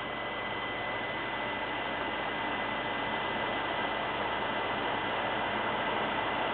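Steady whooshing noise of a running PC's cooling fans, with a thin steady high tone over it.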